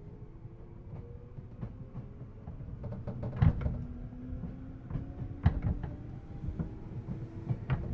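JR East 211 series electric train heard from inside the car as it gathers speed: motor and gear whine rising steadily in pitch over the running rumble. Two sharp knocks ring out midway, about two seconds apart.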